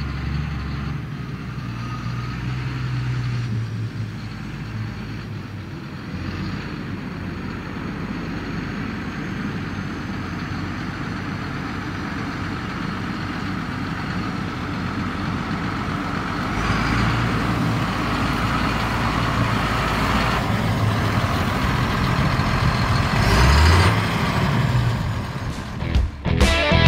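CLAAS Axion 850 tractor's six-cylinder diesel engine running as the tractor drives across grass, getting louder as it comes closer, with the engine note rising briefly near the end. Rock music cuts in at the very end.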